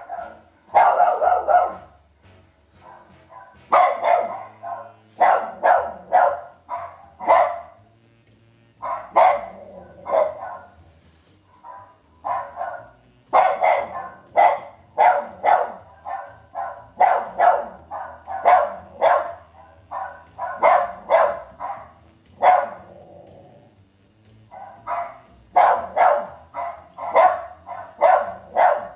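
Jack Russell terrier barking in runs of short, sharp barks, about two a second, with brief pauses between runs.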